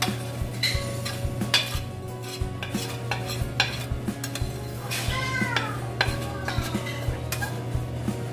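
Metal fork scraping and clinking against a stainless steel pan as thick, dried sauce is scraped out onto cassava flakes, with a brief squeal of metal on metal about five seconds in. A steady low hum runs underneath.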